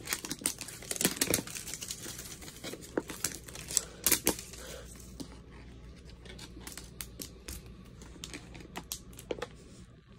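Wrapping being torn and peeled off a toy surprise egg by hand, crinkling with many sharp crackles, busiest in the first half and thinning out towards the end.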